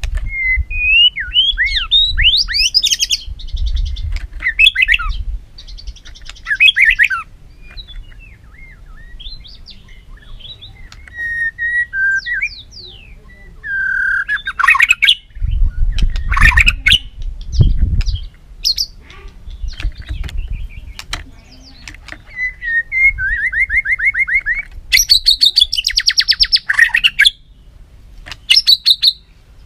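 White-rumped shama in heated, competitive song: loud, varied phrases of whistles sliding up and down, harsh notes and fast buzzy trills, in bursts with short pauses. A couple of low thumps come about midway.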